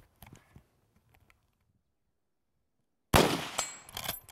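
A single rifle shot from a .30-30 lever-action rifle about three seconds in, ringing on briefly, followed near the end by sharp clacks of the lever being worked to eject the spent case and chamber the next round.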